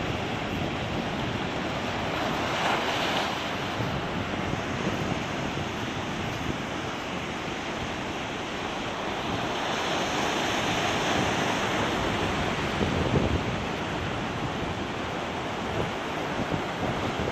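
Ocean surf breaking and washing over rock ledges, a continuous rushing that swells louder a few times as bigger waves come in, with wind buffeting the microphone.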